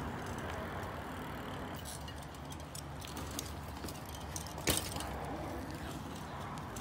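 A BMX bike lands once with a sharp knock about two-thirds of the way through, over a steady low rumble.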